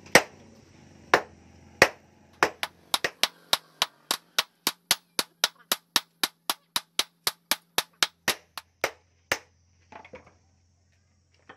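Hand hammer forging a red-hot bearing-steel knife blade on a small steel post anvil: a few spaced blows, then a quick, even run of ringing strikes about three a second that stops a couple of seconds before the end.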